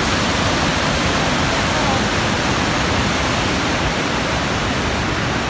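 Waterfall and river rapids rushing steadily, an even wash of white water.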